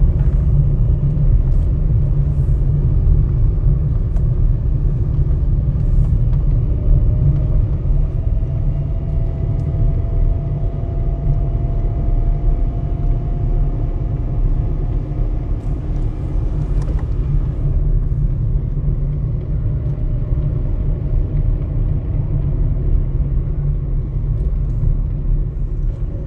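Car driving along a road, heard from inside the cabin: a steady low rumble of engine and tyre noise, with a faint whine that slowly rises in pitch about a third of the way in.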